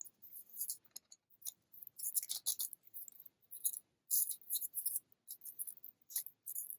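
Kinder chocolate egg packaging being handled and unwrapped: wrapper crinkling and small plastic clicks and rattles in irregular short bursts, with brief silences between them.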